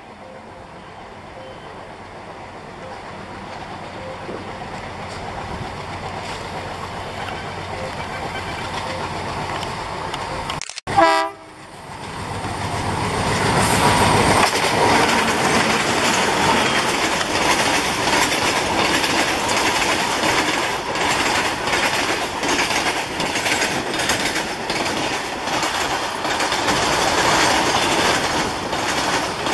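A pair of ALCo WDG-3A diesel locomotives approaching with an engine drone that grows steadily louder, a short horn blast about eleven seconds in, then the locomotives passing close by. After that comes the steady clickety-clack of freight wagon wheels over the rail joints.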